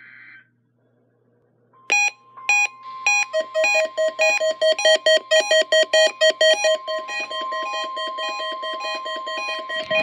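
Reecom R-1650 weather radio sounding its alert for a NOAA Weather Radio Required Weekly Test: rapid, repeating electronic alarm beeps over the station's steady warning alarm tone, both starting about two seconds in. Just before them, the buzzy data burst of the test's digital header cuts off.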